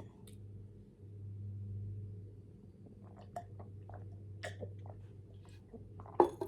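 Close-miked chewing of Maggi instant noodles: scattered soft, wet mouth clicks over a steady low hum, with a louder sharp click just before the end.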